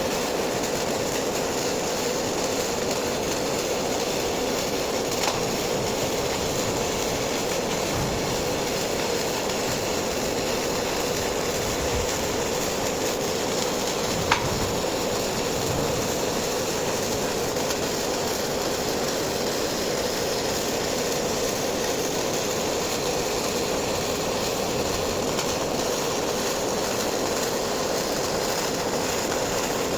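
MIG welding arc burning steadily on steel, an unbroken sizzling hiss with a steady hum, laying one long bead. A single sharp pop about halfway through.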